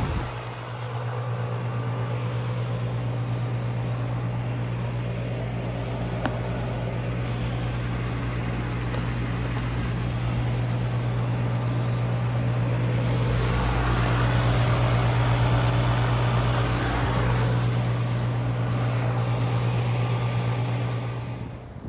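Outdoor heat pump unit running: a steady low compressor hum with overtones under the rushing of its fan. About thirteen seconds in, a swell of rushing noise rises for a few seconds and then eases.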